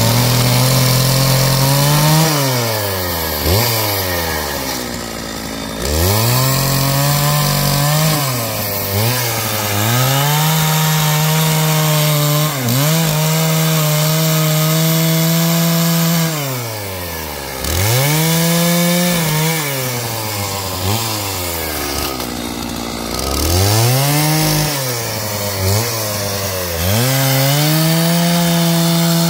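Stihl chainsaw's two-stroke engine held at high revs in bursts of a few seconds, the pitch sliding down toward idle and climbing back up about seven times as the throttle is released and squeezed again.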